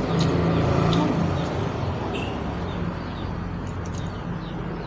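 Low, steady engine-like rumble of a motor running, a little louder in the first second or so and then easing, with faint scattered clicks as crab shell is pulled apart by hand.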